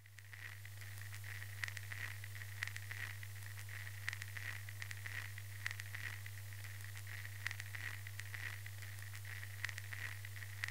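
Steady low hum under a hiss with irregular sharp crackles and a thin high tone that flickers, fading in during the first second.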